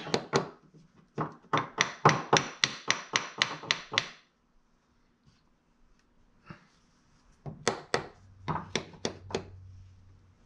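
Small hammer tapping on wooden boards, tapping them into line: a quick run of about a dozen light blows, a pause, then a second run of about eight.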